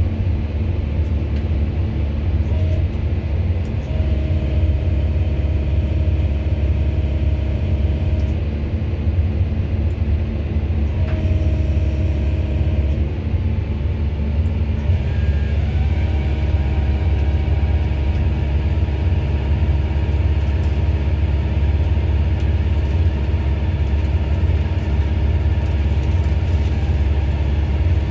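A 20-ton excavator's diesel engine running steadily under hydraulic load, driving an excavator-mounted firewood processor through its breaker circuit. A hydraulic whine comes and goes over the low rumble, settling into a steady whine about halfway through as the processor's chain bar saw cuts into a pine log.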